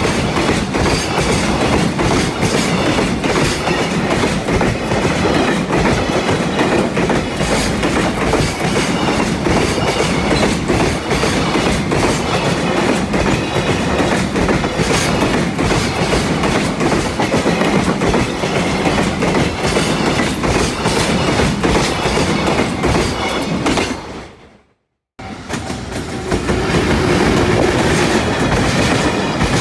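Train passing close by, its wheels clattering rhythmically over the rail joints. About three-quarters of the way through the sound cuts out suddenly for a moment, then train noise resumes.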